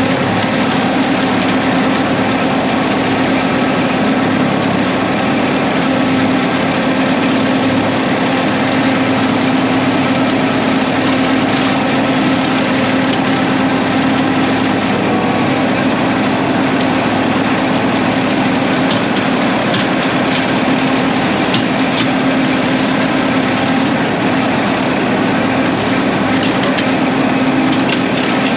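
John Deere 3025E compact tractor's three-cylinder diesel engine running steadily at constant speed, turning a rotary cutter (brush hog), with a few brief clicks scattered through the second half.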